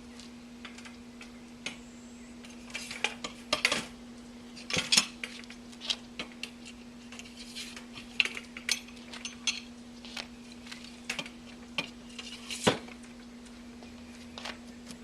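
Metal parts of a chafer stand clinking, clanking and scraping irregularly as they are handled and slid together, with a sharper clank about five seconds in and another near the end. A steady low hum runs underneath.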